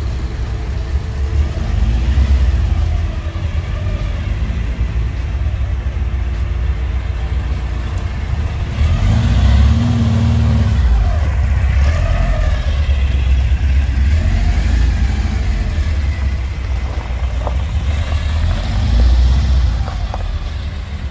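Three-wheeled motorcycle's engine running as it rolls slowly along, a steady low rumble that swells briefly a few times.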